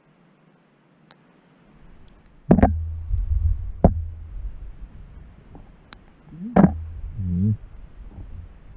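Handling noise from a camera moving against the rough stone walls of a narrow shaft. After a quiet start comes a low rumble, broken by sharp knocks about two and a half, four and six and a half seconds in.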